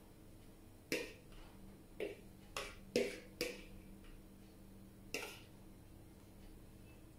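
A metal fork clicking and tapping against a plastic bowl and a ceramic plate while scraping salad out of the bowl: about six sharp clicks, the last one about five seconds in.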